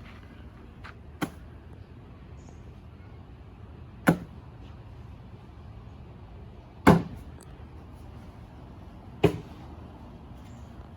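Cornhole bean bags landing on the board with a thud each, four throws about three seconds apart, the third the loudest.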